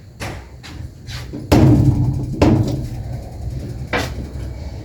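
A door being opened and shut: a sudden heavy thump about one and a half seconds in, another about a second later, and a sharp knock near the end.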